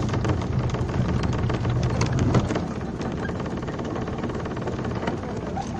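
Speedboat engine running with a steady low drone under the rush of water and wind; the drone drops and becomes quieter about two and a half seconds in.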